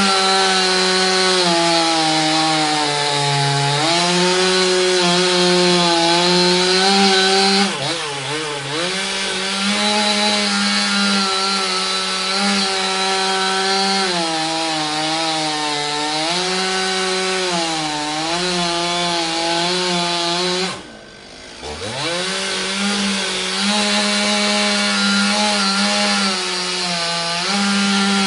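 Chainsaw running at high speed and cutting wood, its pitch sagging and recovering repeatedly as it loads in the cut. About twenty seconds in it drops away briefly, then revs back up with a rising pitch.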